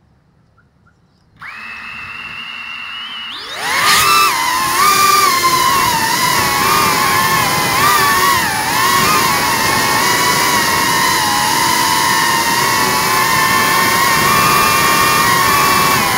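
FPV quadcopter's brushless motors and propellers: they start spinning at idle with a steady whine about a second and a half in, spool up sharply with a rising whine about three and a half seconds in, then run with a loud whine that rises and falls in pitch with the throttle.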